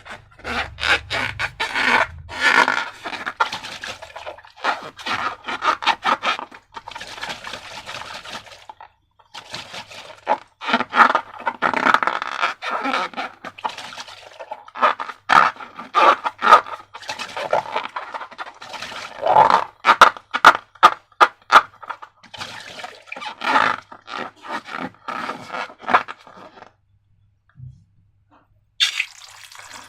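Slime being worked and stirred: dense, irregular crackling and scraping in long stretches, with a short break about nine seconds in and a pause near the end.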